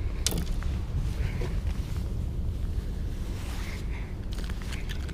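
Wind on the microphone, a steady low rumble, with a sharp click about a third of a second in and a few fainter ticks.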